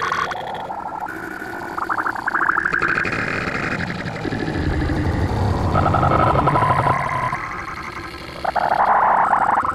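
Cartoon soundtrack run through stacked audio effects: warped, layered and pitch-shifted copies of the same sounds, wobbling and jumping in pitch, loudest near the end.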